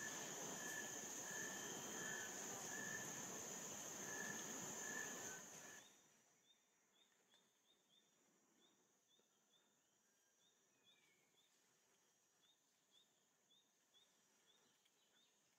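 Insect chorus: a steady high-pitched drone with a repeated pulsing note beneath it, which cuts off abruptly about six seconds in. After that only faint, regular insect chirps remain, a few each second.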